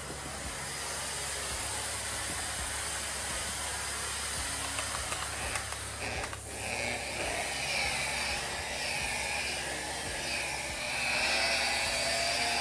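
Handheld electric polisher running on a granite countertop during the polishing stage after chip filling, an even hiss of the pad on the stone. From about halfway in, a motor whine comes in and wavers up and down in pitch as the tool is worked.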